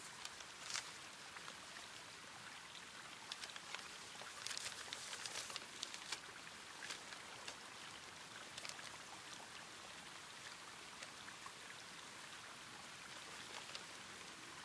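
Faint, steady outdoor water ambience, a light hiss like rain or a trickling stream, with a few soft scattered crackles from a crumpled paper map being handled.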